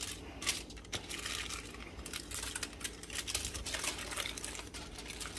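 Aluminium foil crinkling as hands fold it over and wrap it around a fish, a run of irregular crackles.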